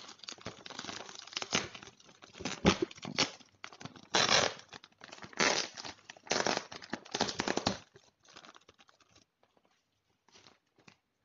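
Clear plastic bag crinkling and tearing as hands pull it open, in a series of loud rustling strokes that thin out to a few faint ones after about eight seconds.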